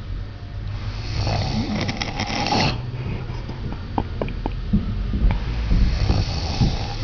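Heavy snoring: two long, rattling snoring breaths, one about a second in and another near the end, with a few small clicks between them.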